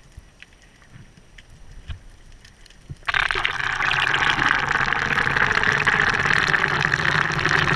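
Underwater noise picked up by a camera in its waterproof housing: faint clicks at first, then, about three seconds in, a sudden switch to a loud, steady rush of water and bubbles against the housing as it moves just below the surface.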